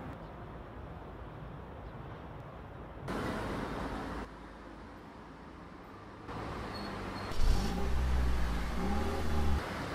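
Street traffic ambience whose level jumps up and down from shot to shot. About seven and a half seconds in, a loud, low vehicle engine rumble starts suddenly, its pitch rising and falling as it revs, then stops shortly before the end.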